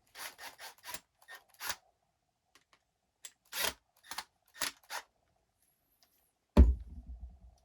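Plastic parts of an RC monster truck being handled and test-fitted together: two clusters of short clicks and scrapes, then a loud thump about two-thirds of the way through, followed by a few small rattles.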